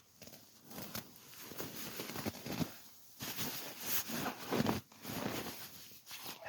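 Irregular rustling and crinkling handling noise in uneven bursts, like gear or fabric being moved about.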